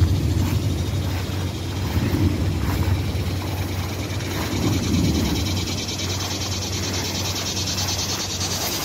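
Evening chorus of frogs and insects, a fast high pulsing trill that grows a little toward the end, over an uneven low rumble.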